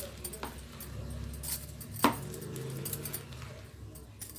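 A bowl of rice-and-gram-flour vada dough being mixed and kneaded by hand, with a few light clinks and knocks against the bowl, the sharpest about two seconds in, over a faint low hum.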